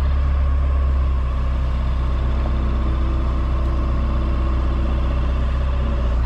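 Engine running at a steady speed, a deep even hum with no change in revs.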